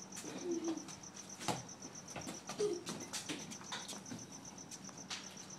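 Cricket chirping: a high, evenly pulsed chirp that keeps on steadily, with a few faint knocks scattered through it.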